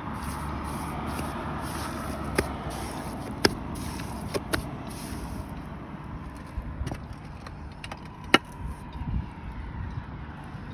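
Steel trowel working mortar into a roof verge, scraping, with about five sharp clicks of the trowel against the tiles, the loudest about eight seconds in, over a steady rushing background noise.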